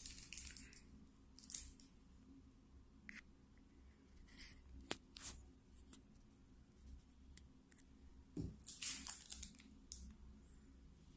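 Faint scattered handling noises: short rustles and a few sharp clicks, with a low thump about eight and a half seconds in followed by a louder rustle.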